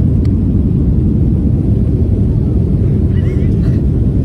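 Steady low drone of airliner cabin noise, the engines and rushing air inside a Southwest Boeing 737, heard through a phone's microphone.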